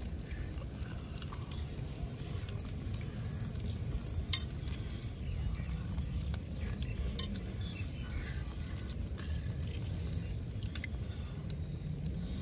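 Small clicks and clinks of snail shells being picked at and handled on a wire grill over charcoal, with one sharper click about four seconds in, over a steady low rumble.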